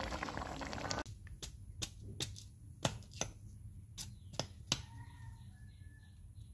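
Fresh bamboo shoot sheaths being torn off by hand: a string of sharp, irregular snaps and cracks, about eight in four seconds. For the first second a pan of sliced bamboo shoots bubbles steadily at the boil, cut off suddenly.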